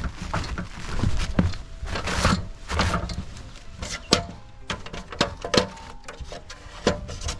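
Footsteps of hikers walking a bush trail: irregular steps, roughly one or two a second, over rustling.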